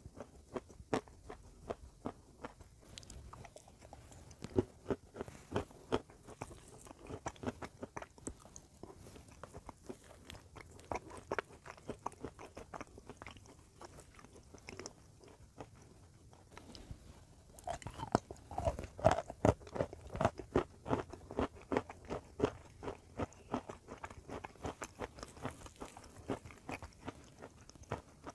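Close-up crunching and chewing of brittle, chalk-like chunks: irregular crisp cracks, busiest and loudest about two-thirds of the way through.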